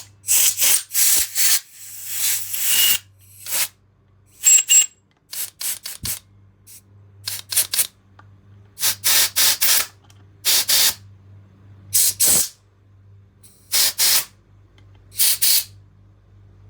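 Compressed-air blow gun giving repeated short blasts of hiss into the passages of a VW 01M transmission valve body, blowing out loose aluminium particles.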